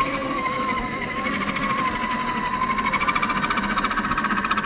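Brushed 550-size electric motor and geared drivetrain of an Axial SCX10 II RC crawler whining under throttle, the pitch wavering as the throttle changes. The whine turns louder, with a fast buzzing pulse, about three seconds in.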